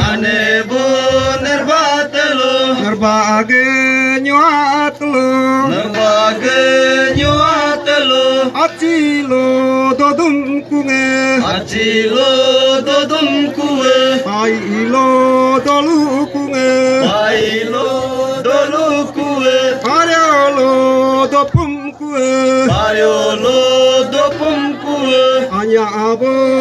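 A man chanting in a sing-song melody over a steady held drone note.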